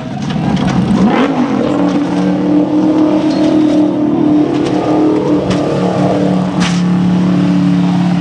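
Formula Offroad buggy's engine revving as the car tumbles down a sand slope, then running on at a steady pitch while the car lies wrecked and smoking. A couple of sharp knocks come about two thirds of the way through.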